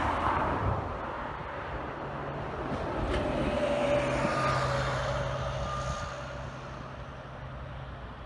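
ATR 72 twin-turboprop airliner taxiing: the engines run with a steady low propeller drone and a higher whine that swells about four seconds in and then eases off. A broad rush of noise is loudest at the start.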